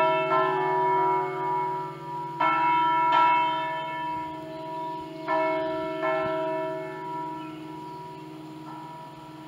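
Swinging church bells from a five-bell set in D cast by Pruneri in 1953, rung electrically. They strike in pairs every two to three seconds, each stroke ringing on with a long hum. The strokes grow weaker, and the last one near the end is faint.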